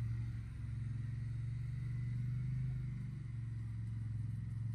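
Polaris Sportsman Touring 1000 XP ATV's parallel-twin engine running steadily at low speed as the quad drives gently across grass.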